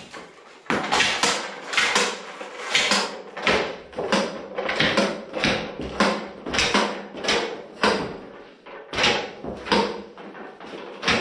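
A series of sharp knocks, about two a second.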